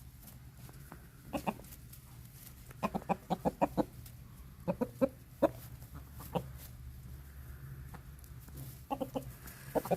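Chickens clucking in short clusters of quick clucks. The busiest run, about eight clucks in a second, comes about three seconds in.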